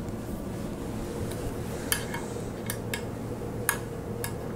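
Allen wrench clinking against steel as small flathead cap screws are tightened into a fixture plate: about five sharp, ringing metal clinks in the second half, over a steady background hum.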